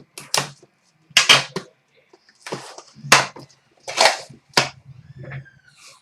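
Sports card packaging being torn and opened by hand: a run of sharp crackling, crinkling bursts, about seven of them.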